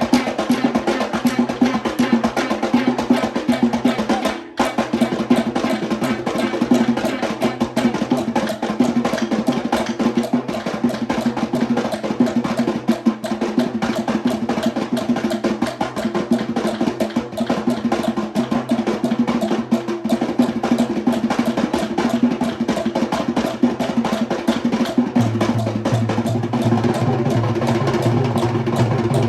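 Sri Lankan traditional drum ensemble of Kandyan drum, thammattama, daula, yak bera and bass drum playing fast, dense rhythms, with a brief break about four and a half seconds in before the strokes resume.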